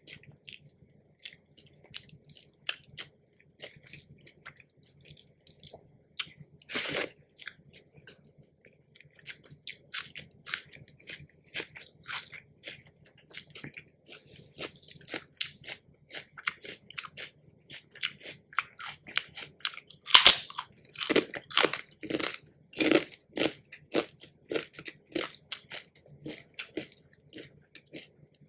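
A person chewing and biting crunchy food close to the microphone, with many short crisp crunches. The crunching is loudest and thickest about twenty seconds in.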